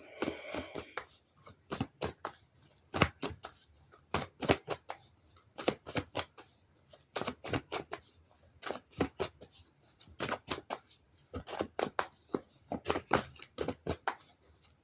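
Tarot cards being handled: shuffled and laid out, a run of irregular soft clicks and flicks of card on card.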